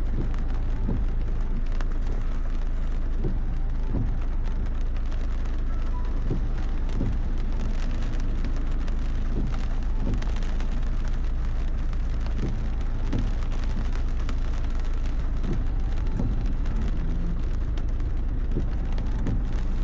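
Heavy rain on a moving car, heard from inside the cabin: a steady low road-and-engine rumble under the hiss of rain, with the windshield wipers sweeping and a soft thump every second or so.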